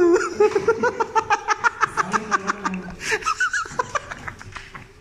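A person laughing in quick, rapid bursts for about three seconds, then a few softer bursts as it trails off near the end.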